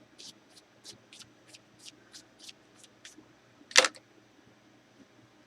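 A cloth rag wiped back and forth in quick short strokes, about three a second, then a single sharp knock of something hard set down or struck, the loudest sound.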